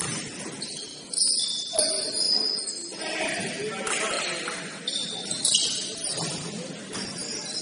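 Basketball shoes squeaking sharply and repeatedly on a hardwood court during play, with a few knocks and thuds among them.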